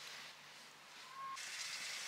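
Quiet room tone, then about a second and a half in, a sudden change to the steady hiss and bubbling of water at a rolling boil in a lidded stainless-steel pot on a gas burner.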